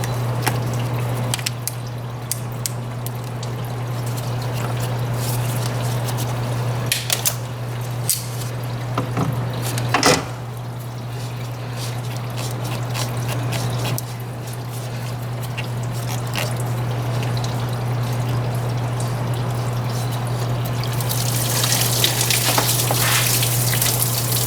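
Engine coolant trickling and dribbling out of the opened cooling system as the thermostat hoses are disconnected, with a few sharp clicks of tools on a hose clamp, over a steady low hum. The liquid sound swells into a louder rush near the end.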